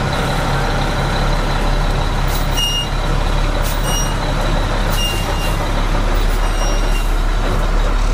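Oshkosh 6x6 military truck's diesel engine running steadily at low speed as the truck crawls through a ravine. Several short high-pitched chirps come and go from about two and a half seconds in.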